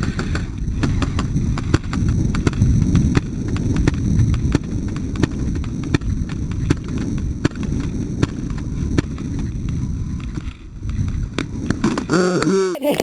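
Heavy low rumbling handling and movement noise on a body-worn camera, with many sharp clicks scattered irregularly through it. A voice cuts in briefly near the end.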